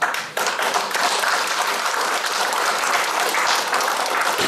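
Audience applauding: dense clapping from many hands that starts suddenly and holds steady.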